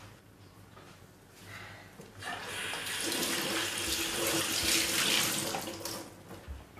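Water running from a kitchen tap into a sink. It starts about two seconds in and stops shortly before the end.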